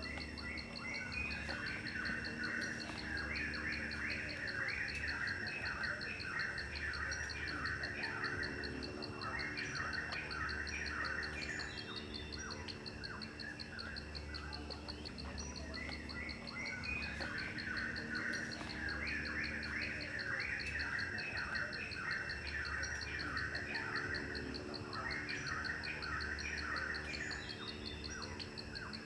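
Insects trilling steadily, with bursts of bird chirping lasting several seconds, coming and going.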